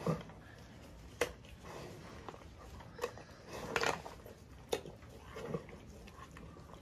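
Lion biting and chewing raw meat: a handful of irregular crunches and smacks, the densest cluster a little past the middle.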